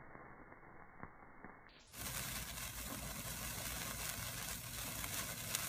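Burning firecracker sparkler hissing and crackling. For the first two seconds the sound is slowed down and muffled by slow-motion playback. At about two seconds it jumps to normal speed, louder and bright, with a steady fizz and scattered sharp crackles.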